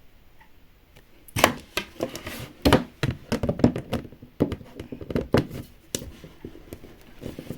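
Small plastic parts of a Miniverse Make It Mini miniature room kit being handled and pushed together: an irregular run of sharp clicks and knocks starting about a second and a half in, as a piece that won't seat is pressed into place.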